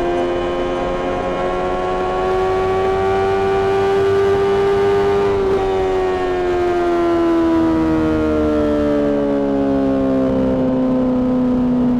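Honda CBR600RR's inline-four engine at high revs through a Mivv aftermarket exhaust, holding a loud high-pitched note that climbs slightly, then falls smoothly from about halfway as the revs drop.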